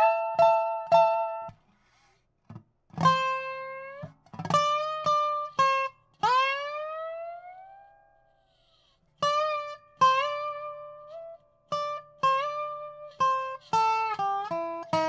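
Wooden-bodied resonator guitar played lap-style with a slide bar, picking a slide-guitar solo line. Separate picked notes, a wide upward swoop about six seconds in that rings on, then a run of notes that slide between pitches and step downward near the end, with two short pauses.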